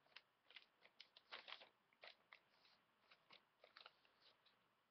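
Faint, irregular crackling and rustling of a sheet of paper being folded and creased by hand.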